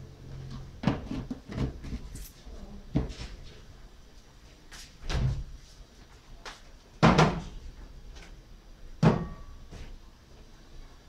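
Irregular knocks and clunks, about six of them, like cupboard doors or objects being handled in a kitchen; the loudest comes about seven seconds in.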